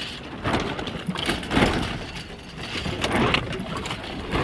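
Wind rushing over the microphone aboard a small sailboat, coming in irregular gusts that swell and fade, with a low rumble under it.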